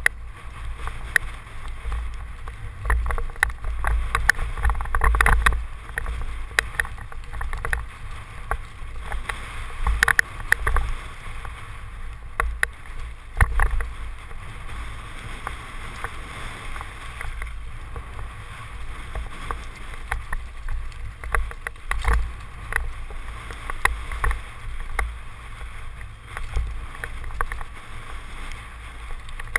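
Downhill mountain bike descending a rocky dirt trail: a steady low rumble of wind on the helmet camera's microphone, with frequent rattles and knocks as the bike runs over stones.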